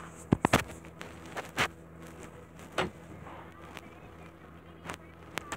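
A few sharp clicks and knocks, a quick cluster of three about half a second in and then single ones spread through the rest, over a low steady hum.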